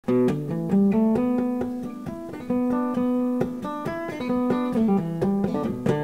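Acoustic guitar played live, picking a melody in quick individual notes.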